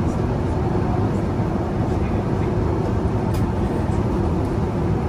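Steady low rumble of cabin noise inside a Boeing 787-9 airliner, from its engines and the airflow, with a faint click about three seconds in.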